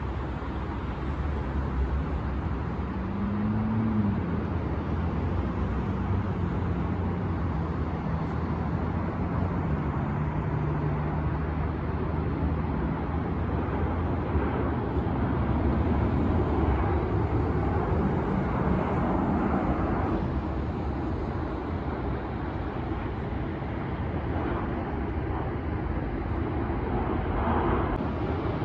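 Steady engine rumble and noise, with a low droning tone that rises and drops about four seconds in, steps lower near ten seconds and fades out by about thirteen seconds.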